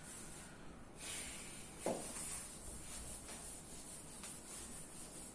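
Whiteboard duster rubbing across a whiteboard to wipe off marker writing, a faint uneven hiss of strokes. A single light knock comes about two seconds in.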